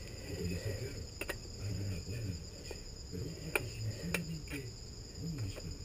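Steady high buzzing of insects, with a few sharp metallic clicks from a wrench working the motorcycle's rear-axle chain adjuster, one about a second in and two more in the middle.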